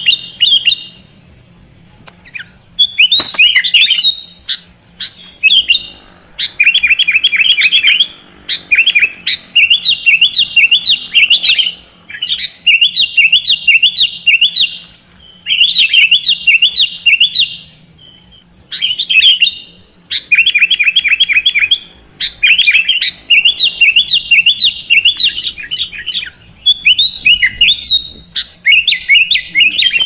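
Sooty-headed bulbul (kutilang) singing: bursts of quick, high chattering phrases, each about one to two seconds long, repeated again and again with short pauses between.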